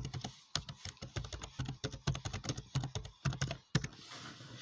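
Typing on a computer keyboard: a quick, irregular run of key clicks, several a second, that stops about four seconds in.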